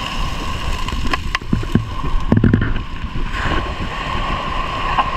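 Wind rumbling on the microphone, with a few sharp clicks about a second in and a brief louder low patch around halfway through.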